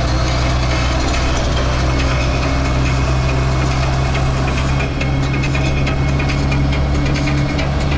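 Steady engine drone and road noise inside a vehicle's cabin at motorway speed.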